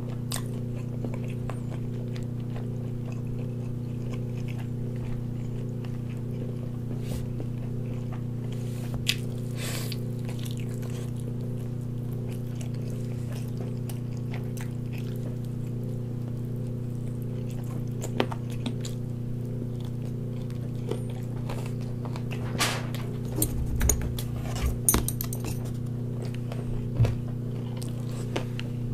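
Eating a large chicken leg: scattered clicks and snaps of meat being torn and chewed, and a cluster of metal chopstick clicks near the end, over a steady low electrical hum.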